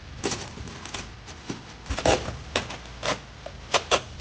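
Hands working foil-faced foam insulation board into place: irregular sharp scrapes and taps, with a quick pair of clicks near the end.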